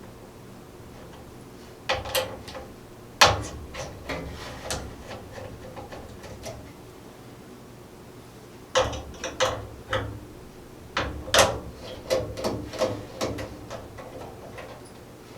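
Irregular clicks, taps and knocks of small metal parts as the motherboard's aluminium M.2 SSD heatsink plate is unscrewed and lifted off. The sharpest knock comes about three seconds in.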